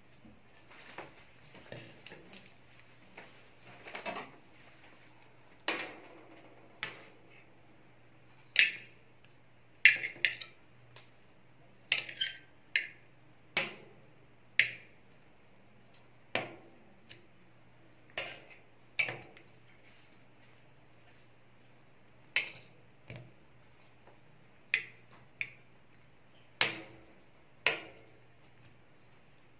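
Metal tongs clinking against a stainless-steel cold-plate pan and a serving plate as ice cream rolls are picked up and set down. The clicks come one at a time at an uneven pace, each ringing briefly, over a faint steady low hum.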